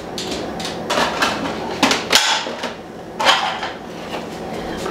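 Plastic freezer-container lids clattering and knocking together as they are rummaged through and pulled out of a lower kitchen cabinet, in several short bursts of rattle.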